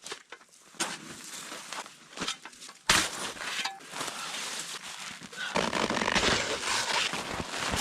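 Snow shovel digging into hard-packed snow and ice, with irregular crunching scrapes, a sharp strike about three seconds in, and a denser run of scraping over the last two seconds.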